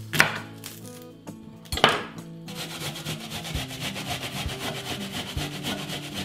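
Half an onion being grated: rapid, even grating strokes starting about two and a half seconds in, after two sharp knocks near the start. Soft background music runs underneath.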